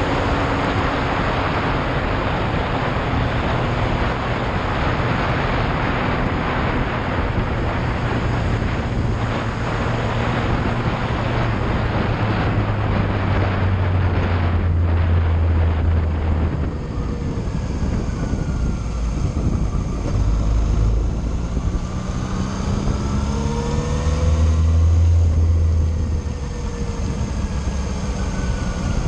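Yamaha Fazer motorcycle riding on a wet road: the engine runs under a heavy rush of wind and road noise over the first half, then the engine note rises several times in the second half as the bike accelerates.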